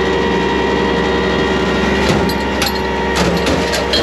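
Semi-truck diesel engine running steadily at a raised idle of about 1200 rpm with the PTO hydraulic pump engaged, a constant drone. From about two seconds in, a quick run of sharp metallic clicks and clanks as the tanker's rear valves and hose fittings are worked by hand.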